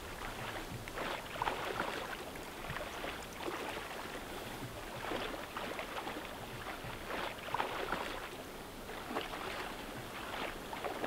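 Small lake waves lapping and splashing close by, in an irregular run of little slaps of water.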